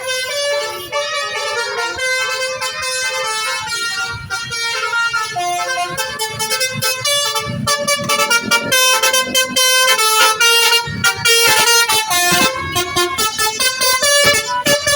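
Bus 'telolet' horn, a multi-tone musical horn of the Basuri type, playing a continuous tune of stepped notes. It gets a little louder about halfway through.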